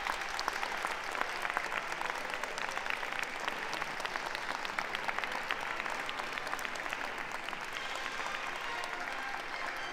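Audience applauding: many hands clapping in a dense, steady patter that tapers off slightly near the end.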